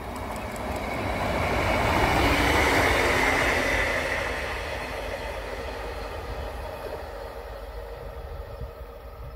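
A red two-car diesel multiple unit passing close by. The engine and wheel-on-rail noise swell to a peak about two to three seconds in, then fade as the train moves away.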